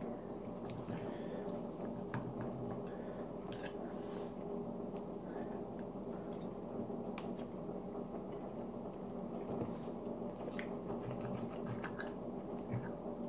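Close-up chewing and biting of French toast, with scattered short clicks from the mouth and from a fork and knife on the plate while cutting, over a steady low hum.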